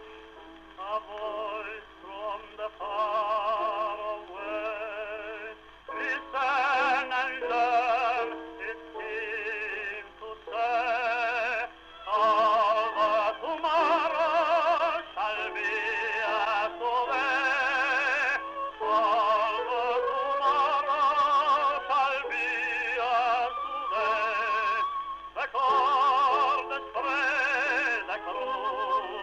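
Operatic-style singing with heavy vibrato: a series of sustained, wavering notes in phrases separated by short breaths.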